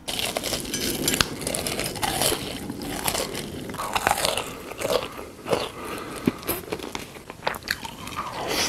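Close-miked crunchy eating: many crisp bites and chewing crunches, one after another.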